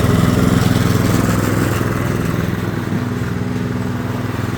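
Briggs & Stratton 650 series 190cc single-cylinder engine on a self-propelled petrol lawn mower running steadily at full throttle, dropping a little in level about halfway through.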